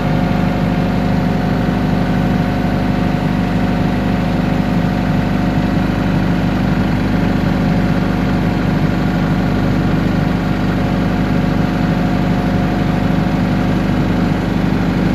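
20 kVA generator set's engine running steadily under load, its output passed through a bucket of salt water used as a makeshift load bank. The pitch and level stay even throughout.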